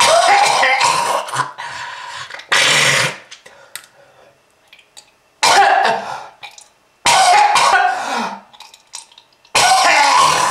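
A person coughing hard in five separate fits, each starting suddenly and trailing off over about a second, presented as a smoker's cough.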